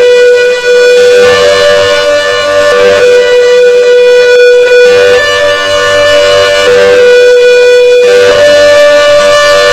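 CS8 siren sounding a hi-lo tone: a loud, steady, reedy note that steps back and forth between a lower and a slightly higher pitch every second or two.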